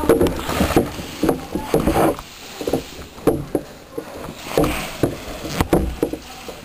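Irregular sharp clicks and knocks with short mechanical rattles, about one or two a second, amid an airsoft close-quarters game.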